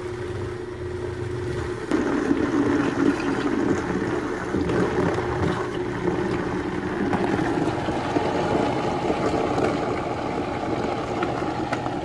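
Steady engine or motor drone with a constant low hum, growing louder about two seconds in.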